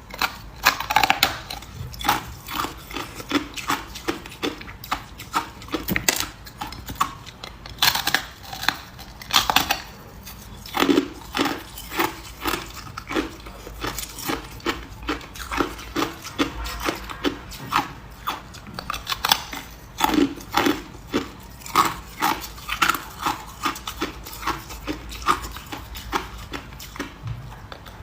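A person biting and chewing ice close to the microphone: a long run of sharp crunches and cracks, at times settling into a steady chewing rhythm of about two crunches a second.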